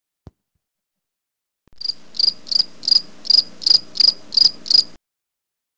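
Cricket chirping sound effect: nine evenly spaced high chirps, about three a second, that start and stop abruptly, the comic cue for an awkward silence. A short click comes just before.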